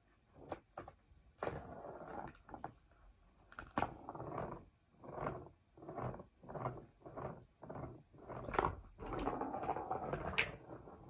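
Plastic ball-track cat toy rattling as a Persian cat paws at the ball inside it: a run of short rolling, scraping bursts about two a second, with a few sharp clicks.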